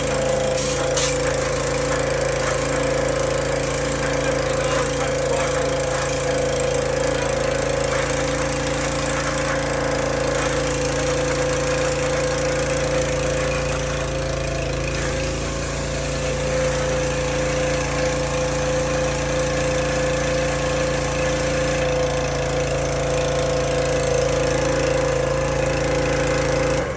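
Small gasoline engine of a pressure washer running steadily at constant speed, with the replacement pump head fitted.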